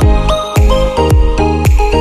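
Electronic background music with a steady kick-drum beat under sustained synth notes.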